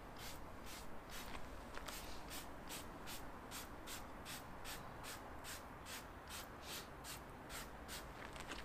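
Trigger spray bottle being pumped again and again, spraying iron fallout remover onto a car: a steady run of short hisses, about three a second.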